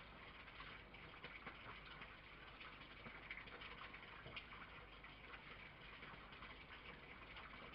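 Near silence: a faint steady hiss with light crackling ticks throughout.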